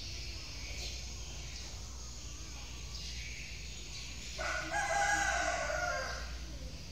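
A rooster crows once: a single call of nearly two seconds, starting about four and a half seconds in. Under it runs a steady low hum and a high hiss.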